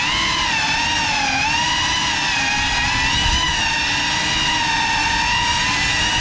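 GEPRC CineLog35 cinewhoop drone's brushless motors and ducted propellers whining, the pitch holding fairly steady with small rises and dips as the throttle changes.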